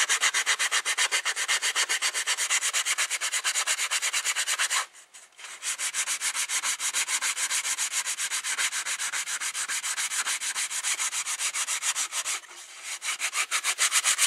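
100-grit sandpaper rubbed by hand along a soft cedar board, in fast, even back-and-forth strokes of scratchy rasping. The strokes stop for about half a second about five seconds in, then go on, turning softer near the end.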